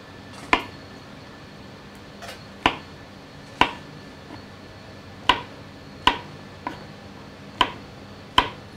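Chef's knife slicing brown mushrooms thickly on a cutting board: about eight separate sharp knocks of the blade reaching the board, unevenly spaced, roughly one a second.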